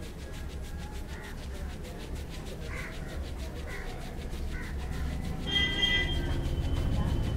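Crows cawing several times in the background. Over the last two seconds a low rumble builds, with a brief high steady tone about five and a half seconds in.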